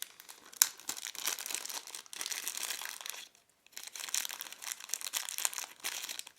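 A small accessory pack crinkling and rustling in the hands as it is opened, a dense run of fine crackles that stops for about half a second a little past the middle, then resumes.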